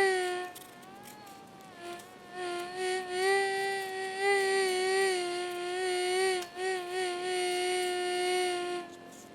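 A flying insect buzzing close to the microphone: a steady, slightly wavering whine that drops out for a couple of seconds near the start and briefly again later, then stops near the end.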